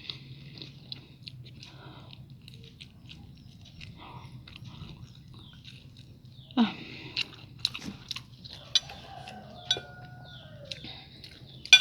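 Close-up chewing of food, with a steady wet mouth sound and scattered crisp crunches, several sharper ones in the second half.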